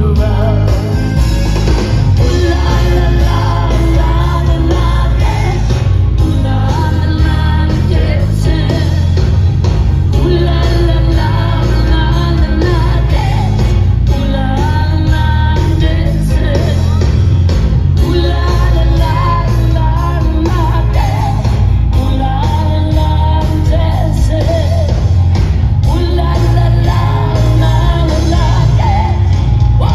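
Live rock band playing with a woman singing lead over electric guitar, bass and drums, loud and continuous.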